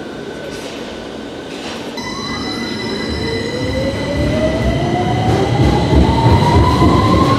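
London Underground Victoria line train (2009 Stock) accelerating along the platform: the rumble of wheels and running gear grows louder, steady high electrical tones appear, and the traction motor whine rises steadily in pitch.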